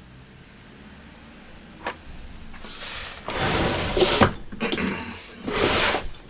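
Metal engine parts being handled and moved about on a workbench: a single click, then stretches of scraping and rattling with a couple of sharp knocks.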